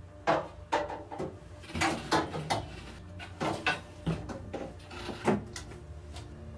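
Bamboo shelf boards knocking and clattering against a black metal shelf frame as they are handled and set in place: about a dozen irregular knocks, the sharpest in the first three seconds and one more a little after five seconds.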